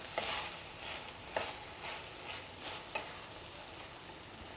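A spatula stirring cooked chicken kheema (minced chicken) in a non-stick frying pan, with a light sizzle from the pan. Several short scrapes and taps against the pan come over the first three seconds, then the stirring goes quieter.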